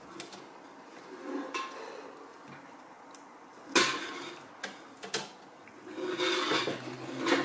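A desk fan's wire grille being closed up, its plastic rim clips snapping shut one after another and the metal mesh clinking and rattling. There is a string of sharp clicks, the loudest a little under four seconds in, with a rattling scrape near the end.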